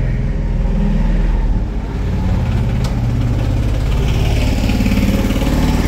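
Small engine of a three-wheeled Piaggio Ape running close by, its pitch rising and falling unevenly as it drives.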